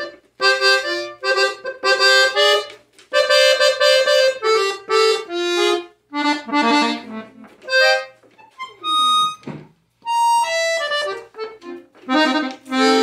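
Gabanelli button accordion played haltingly by a beginner: short chords and single notes pressed out on the bellows, stopping and starting with brief gaps between them.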